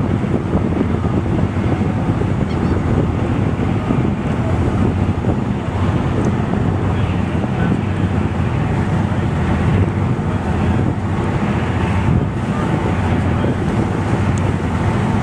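Steady wind rumble buffeting the microphone over open water, with a constant wash of water and boat noise beneath it.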